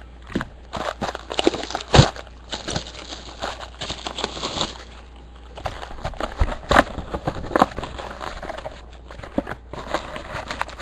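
A sealed trading-card box being opened by hand: plastic wrapping crinkling and tearing and cardboard handled, in irregular crackles and clicks, with one sharp knock about two seconds in.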